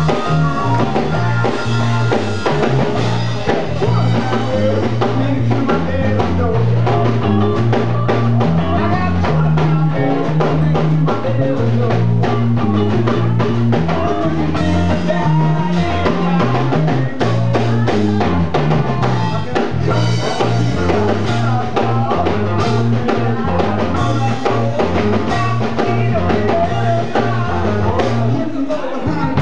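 Live blues band playing: electric guitar, electric bass and drum kit driving a steady groove, with blues harmonica and sung vocals over it.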